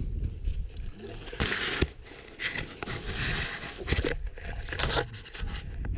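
Nylon parachute canopy and lines rustling and crinkling in short bursts as they are pulled in and gathered by hand, with wind buffeting the microphone.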